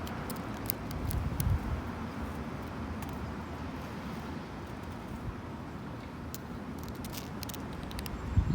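Long natural fingernails scratching and clicking against a wooden bench: short runs of sharp clicks in the first second and a half and again from about six to eight seconds in. Underneath is a steady outdoor rush of wind and road traffic, with low wind gusts on the microphone about a second in and near the end.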